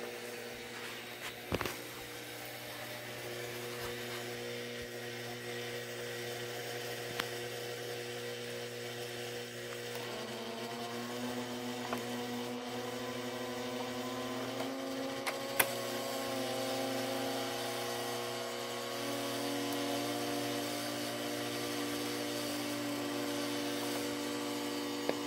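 Steady electrical hum from the powered toy train layout. From about ten seconds in, the MTH Premier operating reefer car's door-and-unloading mechanism runs with a whir. A few sharp clicks are scattered through.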